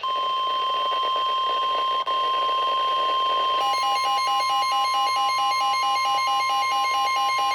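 NOAA Weather Radio warning alarm tone, a single steady high tone announcing a tornado warning, briefly dropping out about two seconds in. About halfway through, a second alarm joins it, beeping rapidly at a lower pitch.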